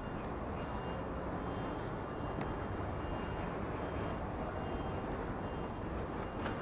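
Steady low rumbling background noise, with faint thin high tones now and then.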